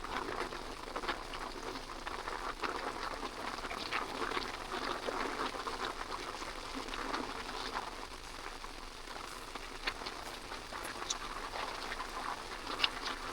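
Steady rain falling, with many small drop ticks pattering through it.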